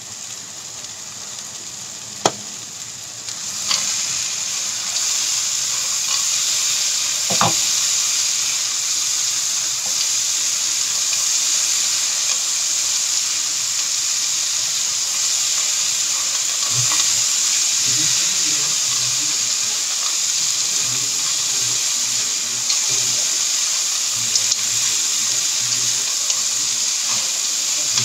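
Tempeh cubes and peanuts sizzling in a hot frying pan as sweet soy sauce is added and they are stirred with a spatula. The sizzle grows louder about three and a half seconds in. A sharp click comes about two seconds in, a knock about seven seconds in, and light scraping knocks later on.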